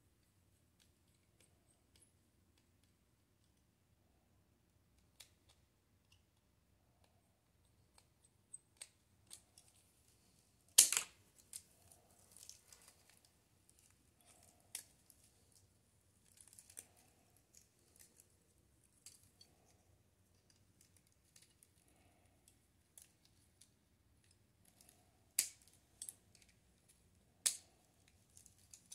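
Scattered small clicks, taps and scrapes of a compact digital camera being taken apart by hand with a small screwdriver, its metal and plastic parts knocked and pried, with one sharp click about eleven seconds in and two more near the end.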